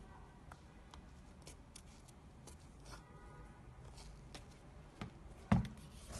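Hands handling and turning a sneaker: scattered light clicks and taps, with a louder knock about five and a half seconds in.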